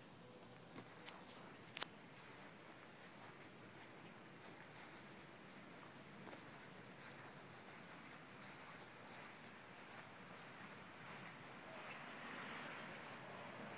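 Steady, high-pitched chorus of insects, with a sharp click about two seconds in and faint rustling later on.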